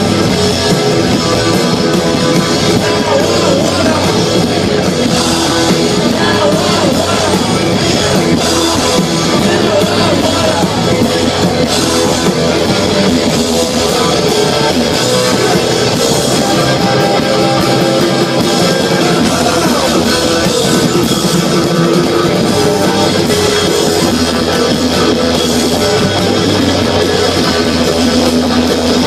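Live punk rock band playing loud and steady, with electric guitar and drum kit.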